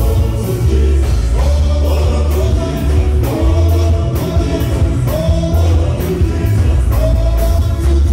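A group of men singing together into microphones, a gospel song over a heavy bass and a steady drum beat.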